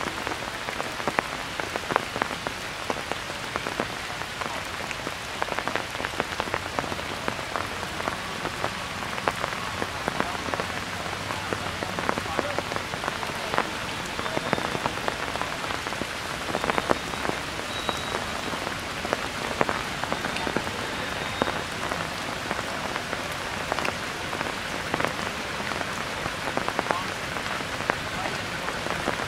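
Steady rain falling, with many individual drops tapping close by.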